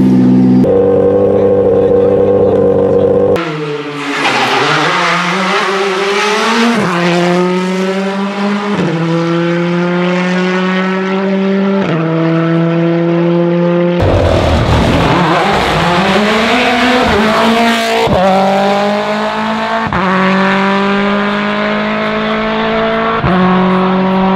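A Ford Fiesta R5 rally car's engine held at steady revs, stepping up about half a second in, then cut off. After that, two rally cars in turn accelerate flat out toward the listener. Each engine note climbs and then drops sharply at each of three quick upshifts.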